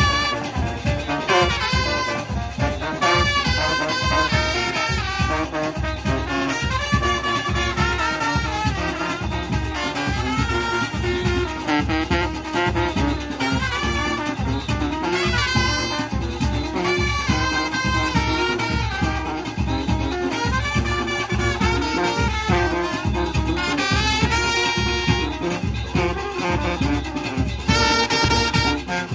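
Junkanoo band playing live: brass horns and a sousaphone carry a melody over a steady, driving beat.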